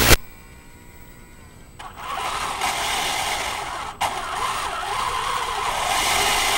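Metal RC Tiger I tank driving: its brushless drive motors, metal gearboxes and tracks run with a steady grinding mechanical noise that starts about two seconds in and drops out briefly in the middle, after a sharp click at the very start.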